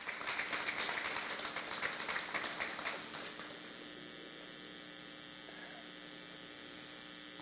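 Scattered applause from an audience fading out over the first three seconds, then a steady electrical hum over the room.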